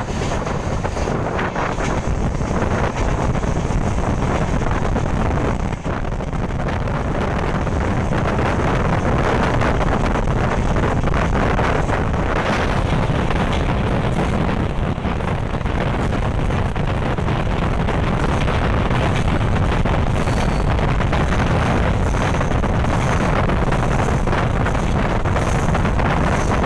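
Steady, loud wind buffeting the microphone, mixed with the running noise of a passenger train's coaches moving at speed.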